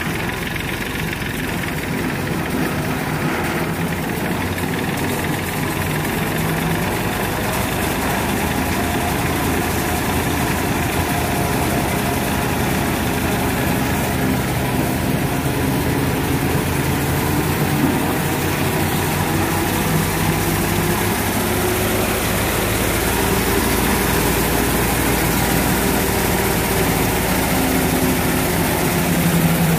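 Tractor-powered thresher running steadily while threshing fenugreek: a constant, even drone of engine and machinery.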